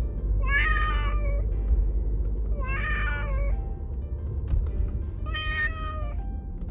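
A kitten meowing three times, each call about a second long, over a low steady rumble, with light plucked background music.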